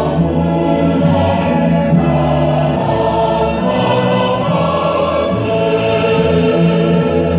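Music with many voices singing together, the sound steady throughout.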